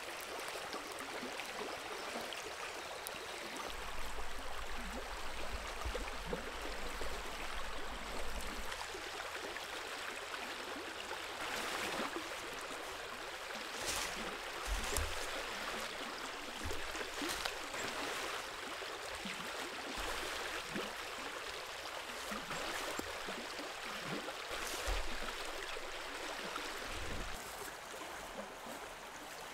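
Steady rush of a flowing river. A low rumble comes in between about four and eight seconds in, and a few soft low thumps sound later on.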